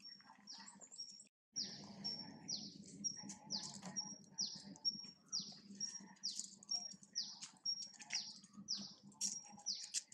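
A bird calling over and over, about two calls a second; each call is a brief high note that drops away in a quick downward sweep.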